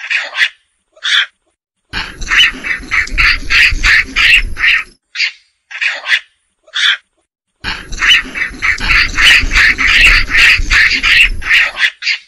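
Macaque calls: short, high-pitched squealing cries, a few single ones and two long rapid runs of about four calls a second. A low rumble sounds under the runs.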